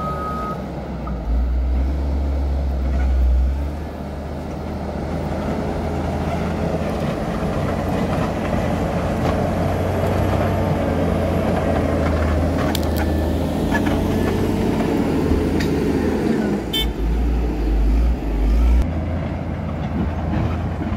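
Caterpillar 140M motor grader's diesel engine running steadily while the grader works dirt, louder for a couple of seconds near the end, with a few sharp clicks.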